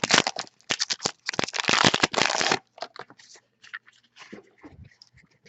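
Foil trading-card pack wrapper being torn open and crinkled for about two and a half seconds, stopping sharply. Softer rustles and clicks follow as the cards are handled.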